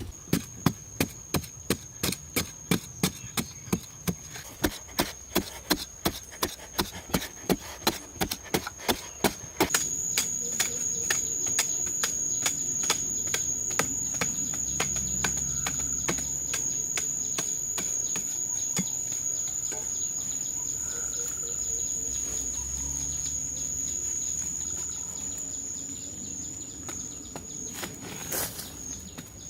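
Repeated sharp tool strikes, about three a second, for roughly the first ten seconds. Over them and after them, insects keep up a steady high-pitched chirring.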